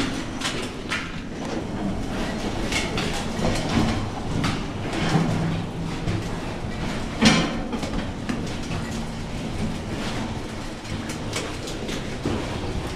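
Mine cart rolling on a rail track: a steady rumble of steel wheels on rail with irregular clacks and knocks, the loudest about seven seconds in.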